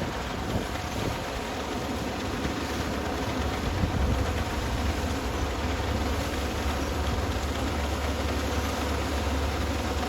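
Kubota ER470 combine harvester running steadily under load, its diesel engine and threshing machinery making a constant low drone.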